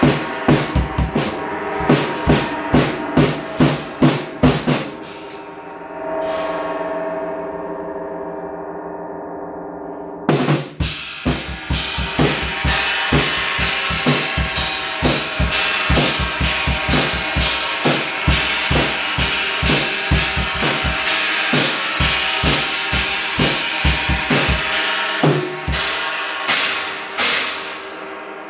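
Drum kit with Paiste cymbals played in busy fills. About five seconds in the drumming stops and a hanging gong rings on for about five seconds. Then the kit comes back in with rapid strokes on drums and cymbals.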